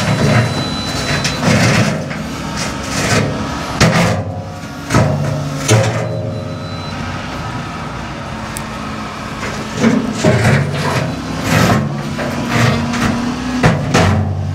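Diesel engine of a LiuGong wheel loader working hard and revving while its steel bucket scrapes and knocks against a buried rock in hard, dry ground, with repeated clanks and scrapes. There is a quieter stretch in the middle, and the knocks pick up again in the last few seconds.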